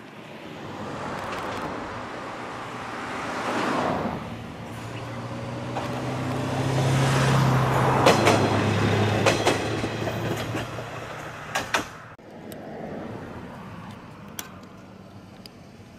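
A diesel railcar approaching and passing close by: its engine drone grows louder to a peak about eight seconds in, with wheels clacking sharply over rail joints as it goes past. About twelve seconds in the sound drops abruptly to a much quieter, steady background.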